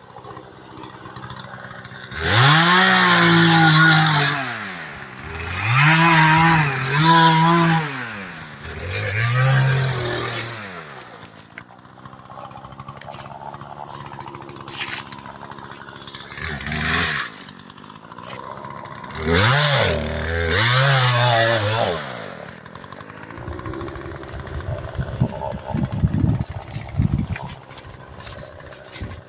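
Two-stroke chainsaw revved up and cut in about five bursts, its pitch climbing, holding and dropping back each time, with quieter running between them. Near the end there is a low uneven rattle.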